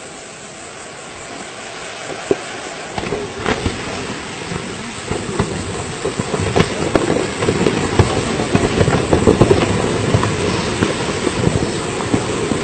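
Volcanic eruption of Kelud: a low rumble with dense crackling and popping. It builds from about two seconds in and is loudest past the middle.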